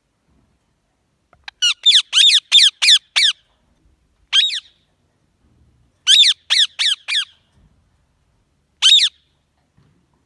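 Green parrot squawking: a quick run of six harsh calls, a single call, another run of four, then one more, each call dropping sharply in pitch.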